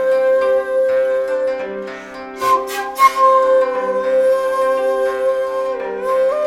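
Background music: long held melody notes over a steady drone, with three short hissing strokes about two and a half seconds in.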